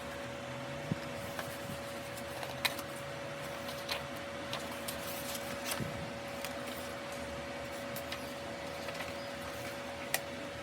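A steady background hum with one constant tone, broken by scattered light clicks and taps, about a dozen, the sharpest near the end.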